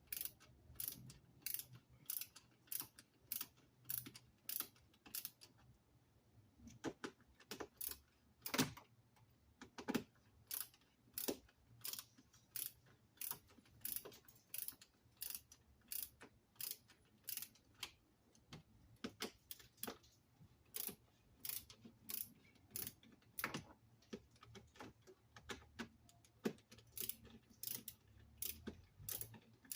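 Hand ratchet with a 7mm socket clicking in steady strokes, about two or three clicks a second with a few short pauses, as bolts are turned.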